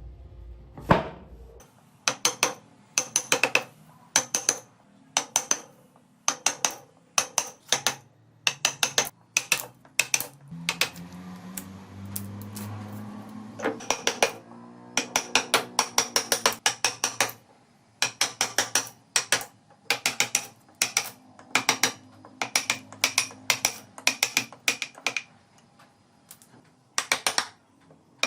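A hand-worked mechanism clicking in quick bursts of several sharp clicks, about one burst a second. A low hum rises briefly around the middle.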